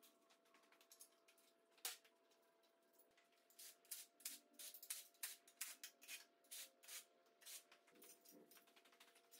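Faint, irregular clicks and rattles of hand tools and parts being worked on a big-block V8's fuel rail and intake manifold, thickest through the middle, over a faint steady tone.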